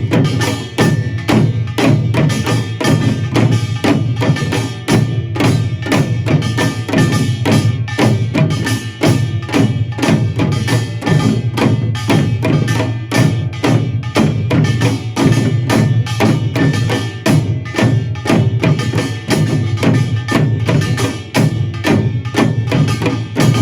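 Korean pungmul percussion ensemble playing in the seated form, with drums and gongs. Dense, fast strokes with metallic ringing run on without a break.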